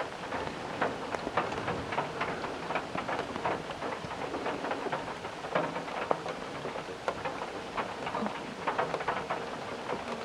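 Heavy rain pelting down, with many separate drops striking close by in an irregular, continuous patter.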